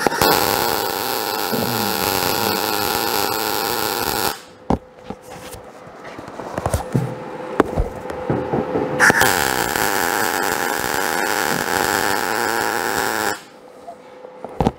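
MIG welder laying two short stitch welds on the thin sheet-metal roof of a 1951 Chevrolet truck. Each weld is a steady buzz lasting about four seconds, with a gap of several seconds between them that holds small clicks and knocks. The amperage is turned right down to avoid burning through the thin sheet.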